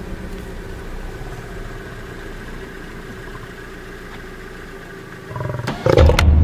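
A car engine idles steadily. About five seconds in, a male lion beside the car lets out a sudden, loud, deep growl, a warning to the tourists to back off.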